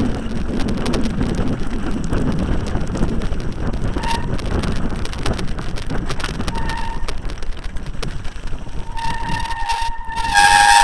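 Mountain bike rattling and clattering down a rough, wet track, with wind on the microphone. Its brakes give short squeals about four and six and a half seconds in. A long, loud, high squeal starts about nine seconds in and is loudest near the end, as the rider brakes hard on the wet descent.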